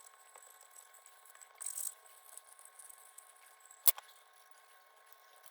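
Quiet bench handling noises while working on lantern parts: a brief rustle about two seconds in and one sharp click or tap just before the four-second mark.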